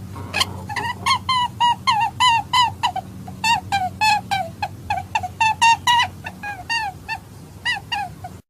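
Hare distress call used as a hunting lure: a rapid run of short, bending squeals, about four a second, cutting off suddenly at the end.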